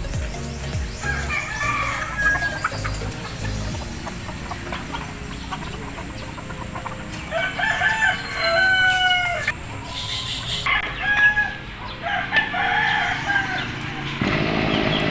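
Roosters crowing several times, one crow after another, with some clucking between.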